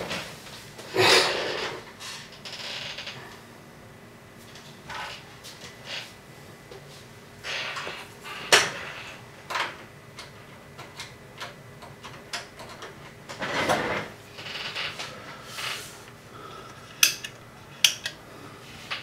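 Scattered handling noises: short rustles and light knocks every second or two, with a few sharp clicks near the end.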